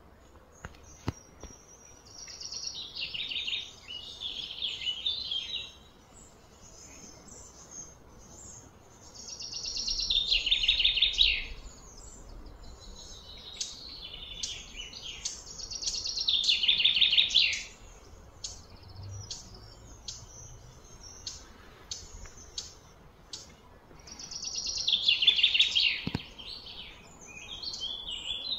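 A bird singing outdoors, repeating a loud trilled phrase of about two seconds that falls in pitch, every few seconds, with short sharp chirps in between.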